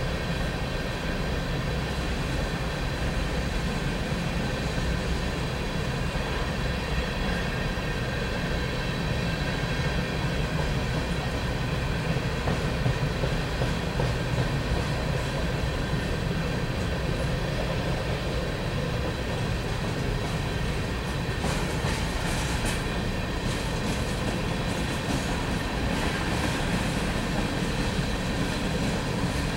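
Freight train of covered cement hopper cars rolling past: a steady rumble of steel wheels on the rails, with a patch of sharper clicking and clanking about two-thirds of the way through.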